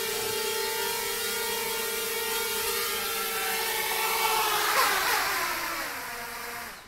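Small quadcopter drone's electric motors and propellers buzzing steadily as it flies. About four seconds in the pitch wavers and swells as it comes down onto the floor, then the motors spin down with a falling whine, and the sound cuts off suddenly near the end.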